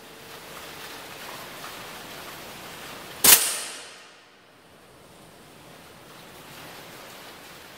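A single shot from a Hatsan BT65 PCP air rifle firing a homemade 2.05 g slug, a sharp crack about three seconds in that dies away within half a second, over a steady background hiss.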